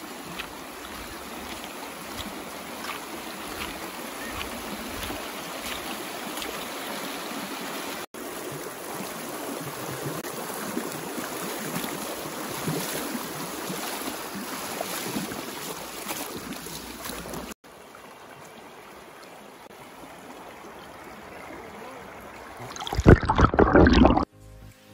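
Shallow stream running over a pebbly bed, a steady babble of moving water. Near the end, a second or so of loud splashing and gurgling as the microphone goes under the water.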